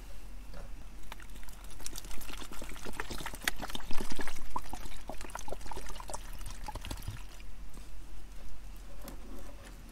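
Water being poured into a hiking pack's water reservoir to fill it all the way up, with small clicks and knocks throughout.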